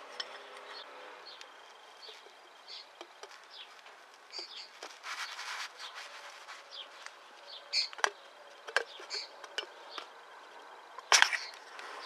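The foot pump's piston, with its seal, is worked into the steel cylinder barrel: rubbing and scraping of the seal against the barrel, with scattered clicks and knocks of metal parts being handled, and a sharp knock near the end.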